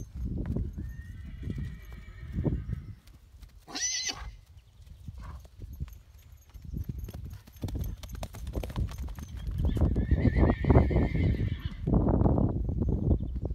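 Pura Raza Española horses whinnying several times, a shrill call about four seconds in and a longer, louder one near the eleven-second mark, over dull hoofbeats on grass as they canter.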